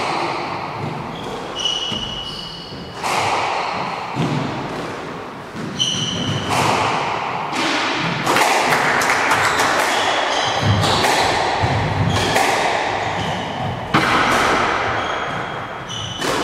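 Squash rally: the ball cracks off rackets and the walls every second or two, each hit echoing around the court, with short high squeaks from players' shoes on the wooden floor.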